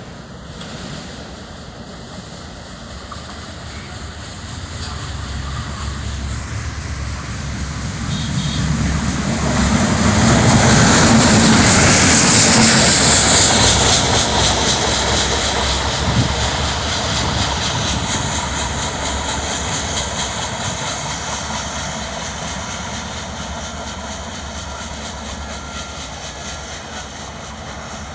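Adif ultrasonic rail-inspection draisine passing by, its engine running as it rolls along the track. It grows louder, is loudest about halfway through, then fades away slowly.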